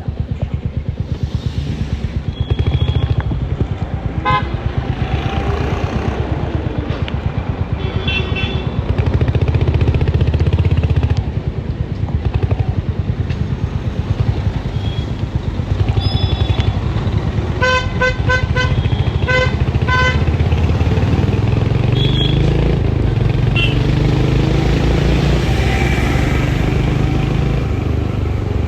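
Royal Enfield Hunter 350's single-cylinder engine thumping steadily under way in traffic. Vehicle horns honk over it: a beep about four seconds in, another around eight seconds, and a run of quick short toots around eighteen to twenty seconds.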